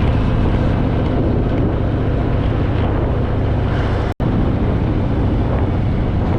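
Wind noise on the rider's microphone over the steady low running of a Harley-Davidson Fat Boy's V-twin engine while riding. The sound cuts out for an instant about four seconds in.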